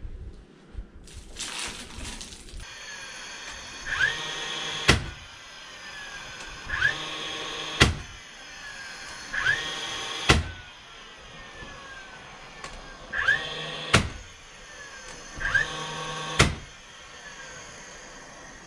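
Cordless drill running in five short bursts, each spinning up with a rising whine, holding briefly and ending in a sharp click as the motor winds down.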